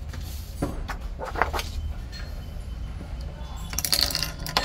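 Metal clicks and clinking as a freshly cut car key is unclamped and handled in the jaw of a Silca Futura key-cutting machine: a few separate clicks early, then a quick rattle of clinks near the end. A low steady hum runs underneath.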